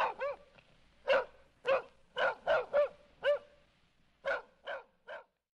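Dog barking: about a dozen short, yelping barks, each rising and falling in pitch, coming in uneven bunches and stopping about five seconds in.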